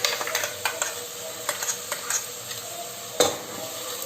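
Metal spoon stirring in a pressure cooker as ginger-garlic paste and blended tomato fry in hot oil: a steady sizzle with repeated clinks and scrapes of the spoon against the pot, the loudest knock about three seconds in.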